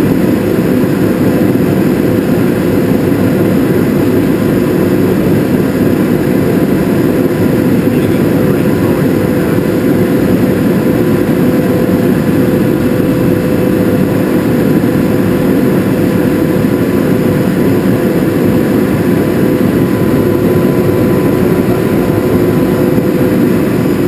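Ingersoll Rand SSR-EPE25U 25 hp rotary screw air compressor running, a loud steady machine noise with a constant hum-like tone.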